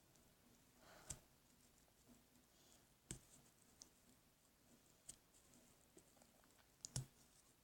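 Near silence broken by a few faint, short clicks about every two seconds, the last and loudest a double click: small plastic doll parts handled while a tiny doll hand is pressed on.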